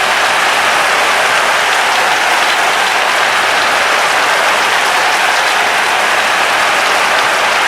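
Large crowd applauding with cheering, a loud, steady wash of clapping that doesn't rise or fall.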